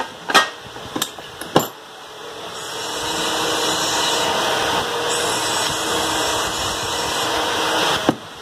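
A few sharp metallic clicks, then a steady mechanical whirr with a hiss that builds up about two seconds in and holds until near the end.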